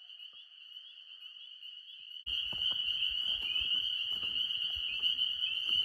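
Dense chorus of small frogs calling at night, a steady shrill trilling. It is faint at first and becomes suddenly louder about two seconds in, with soft crackles and knocks underneath.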